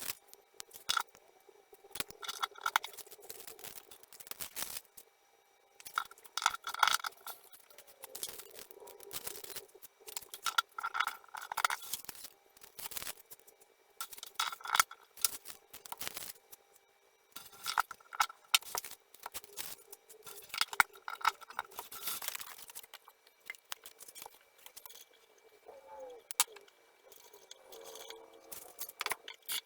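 Steel acoustic guitar strings and small parts being handled while the strings are fitted: scattered light clicks, clinks and scrapes in irregular bursts.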